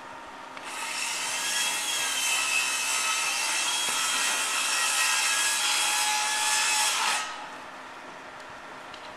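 A steady rasping, hissing noise from a tool working material. It starts about half a second in and cuts off suddenly after about six and a half seconds.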